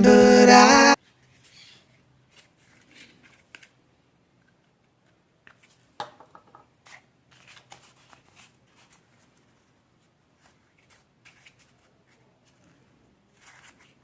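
Faint handling of craft materials (EVA foam and a bottle cap): scattered small rustles and clicks, with one sharper click about six seconds in. Background music plays for the first second, then stops suddenly.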